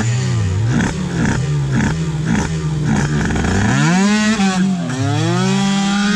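Motorcycle engine revved in quick repeated blips, about two a second, then launching hard about two thirds of the way in: the pitch climbs steeply, dips once at a gear change and climbs again as the bike accelerates down the drag strip.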